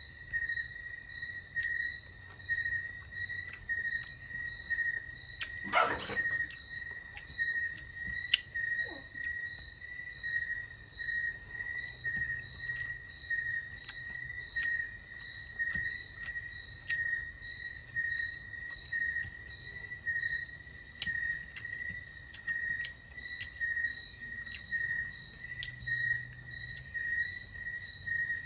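Cricket chirping: one steady high-pitched trill that swells and fades in regular pulses a little more than once a second, with small clicks scattered through and a louder click about six seconds in.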